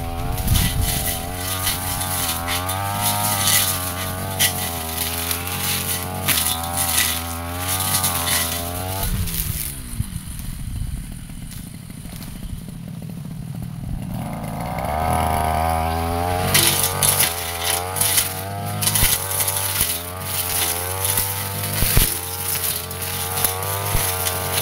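Brush cutter engine running at high revs as its metal blade slashes through undergrowth and woody saplings, with frequent sharp ticks and clatter of the blade striking stems. About nine seconds in, the engine drops to idle. It revs back up about five seconds later, and the cutting resumes.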